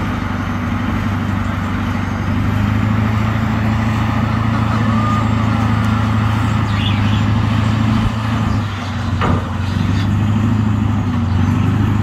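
Armored Caterpillar D9 bulldozer's diesel engine running steadily under load as the dozer shifts a tank bridge, with a sharp knock about nine seconds in.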